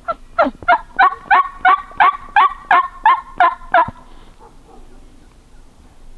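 A run of about twelve turkey yelps, evenly spaced at roughly three a second, ending about four seconds in.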